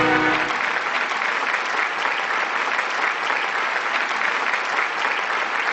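Studio audience applauding steadily, with the orchestral theme music cutting off about half a second in.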